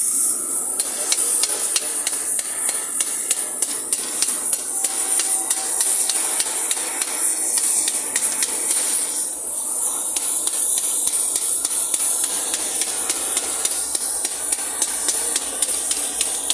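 Rapid, irregular light metallic taps of a tool working on metal, over a steady high hiss.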